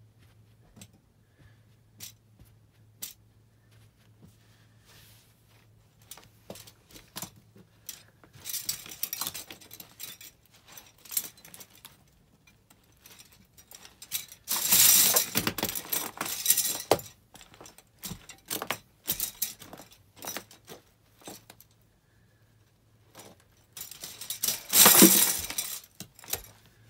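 Disposable plastic spoons and forks cracking and snapping as they are crushed underfoot by a person in socks, in several bouts of dense crackling with short pauses between. After a few scattered clicks the crunching starts about a third of the way in, and it is loudest about halfway through and again near the end.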